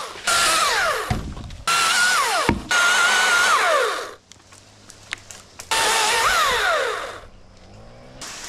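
Electric chainsaw run in four bursts, its motor whine sliding down in pitch each time the trigger is released. There are a few light clicks in the pause before the last burst.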